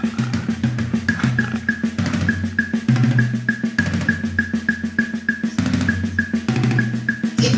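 Film soundtrack music driven by drums: a quick, steady beat with a tick about three times a second over a bass line of held notes.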